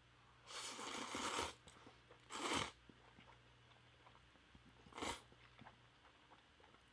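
Instant noodles in spicy soup being slurped and eaten: one longer slurp starting about half a second in, then two shorter eating sounds, the last about five seconds in.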